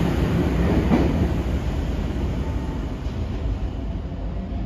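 Running noise inside a Sydney Trains K set double-deck electric train, wheels on rails, growing gradually quieter as the train slows.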